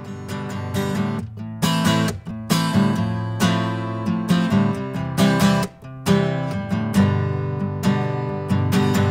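Yamaha steel-string acoustic guitar strummed in a steady rhythm, the chords ringing on between strokes, with no voice.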